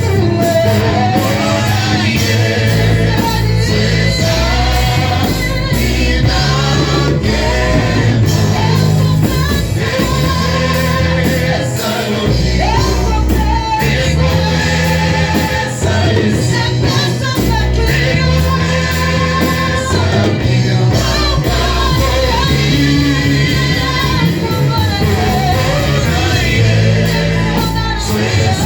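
Church worship music: voices singing a gospel song over band accompaniment.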